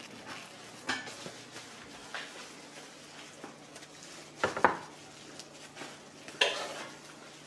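Clear plastic bag crinkling around a loaf of bread, with scattered handling knocks. A white ceramic plate clacks down on the countertop, a double knock about four and a half seconds in, the loudest sound.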